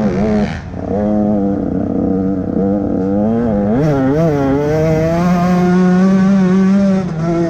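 Motocross bike engine revving hard under race throttle, heard close from the rider's own bike. The engine note cuts briefly about half a second in, swings up and down in pitch around the middle, then holds high and steady before dropping off near the end.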